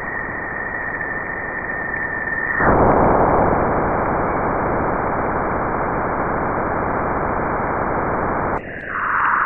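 Jupiter's radio emissions, picked up by a spacecraft and converted into sound: a dense, steady hiss with a high whistle over it that cuts off suddenly under three seconds in, after which the hiss gets louder. Near the end the sound changes to a narrower, higher rushing.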